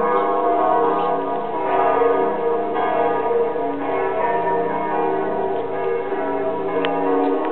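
Several church bells ringing at once, their strikes overlapping into a continuous peal of long, ringing tones.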